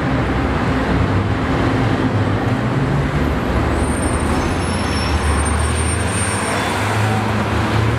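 City street traffic with cars, including a black Porsche GT3 RS, rolling past at low speed: a steady low engine rumble under tyre and road noise. Faint high thin tones come in about halfway through.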